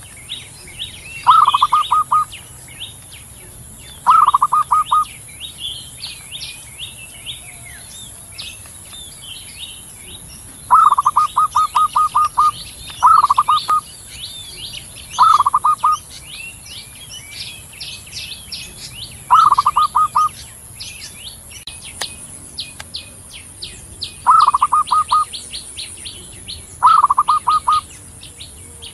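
Zebra dove (perkutut) cooing: eight short phrases of rapid, evenly spaced notes, each about a second long and repeated every few seconds. Behind it, small birds chirp and a steady high hiss runs throughout.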